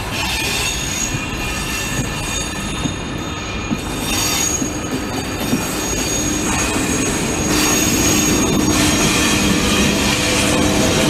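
Passenger train coaches rolling slowly past, their wheels squealing against the rails in thin, high tones over a steady rumble. It grows gradually louder toward the end.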